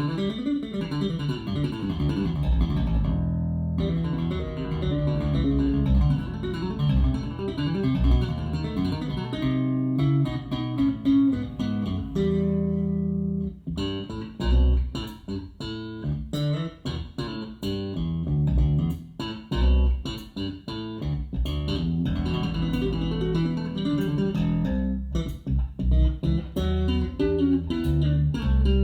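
Solo electric bass guitar recording played back over hi-fi speakers with a REL subwoofer, heard in a small room: plucked and tapped notes with deep low notes.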